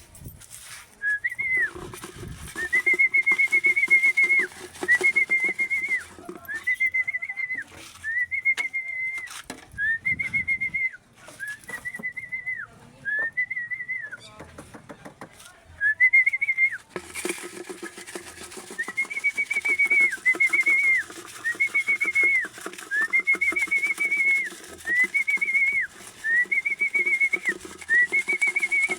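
A person whistling a long series of level notes, each about a second long with an upward slide in and a drop at the end, repeated over and over with a short break midway: the fancier's whistle calling a racing pigeon down into the loft.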